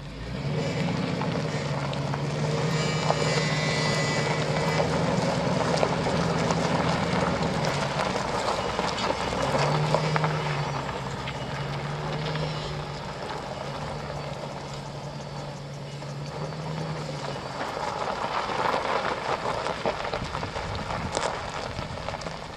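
Pickup truck engine running with a steady low drone as the truck is driven across a gravel lot. Rougher tyre-on-gravel noise rises about three-quarters of the way through.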